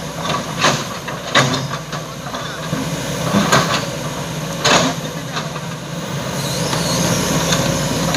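Kobelco SK210 crawler excavator's diesel engine running steadily, with several sharp knocks in the first few seconds as the machine works at the bank. The sound grows slightly louder and brighter near the end as the excavator moves off along the road.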